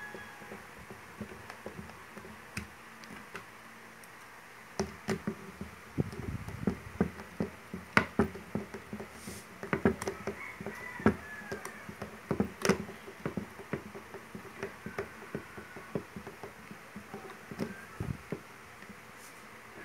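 Screwdriver turning screws into a plastic electric drill housing during reassembly: irregular clicks, scrapes and light knocks of the tool on the screws and casing, starting a few seconds in and thinning out near the end.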